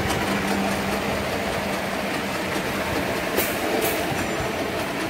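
Paper straw core-winding machine running steadily, a dense continuous mechanical clatter. Two brief sharp high sounds a little past three seconds in.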